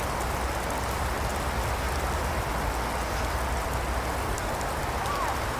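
Rain falling: a steady, even hiss with a low rumble underneath.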